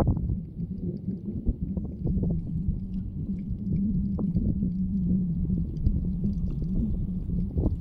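Steady low drone of a fishing boat's engine across the water, its pitch wavering slightly, over a low rumble of wind on the microphone.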